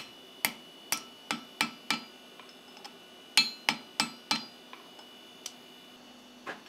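Hand hammer striking a red-hot steel bar over a cone mandrel on the anvil, bending it into a hook. Quick ringing blows: about six in the first two seconds, a short pause, then four more a little past the middle, with a few light taps and one last strike near the end.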